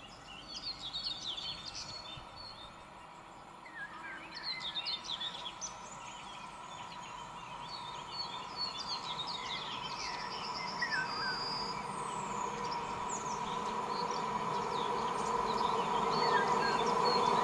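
Songbirds chirping and trilling, while an approaching EN57 electric multiple unit train becomes audible as a steady hum that grows louder through the second half.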